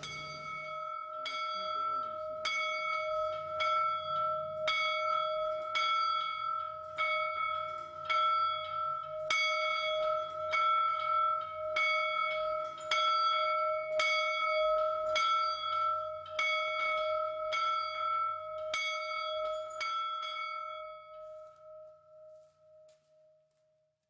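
A large old school bell rung steadily at about one stroke a second. Each stroke leaves a sustained ring. Near the end the strokes stop, and the bell rings on and fades away.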